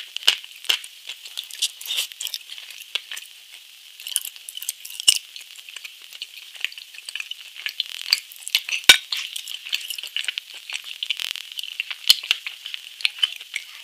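Close-miked chewing and mouth sounds of a person eating a chocolate dessert: a steady run of quick, crackly clicks, with one sharper click about nine seconds in.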